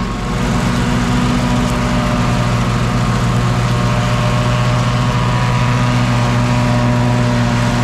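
Lawn mower with a grass bagger, its engine running steadily at constant speed while picking up cut grass and debris.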